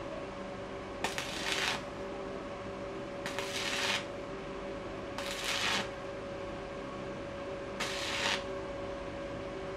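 Stick (arc) welder's arc crackling and sizzling in four short bursts, each under a second, as the rod is struck against steel plate, over a steady hum.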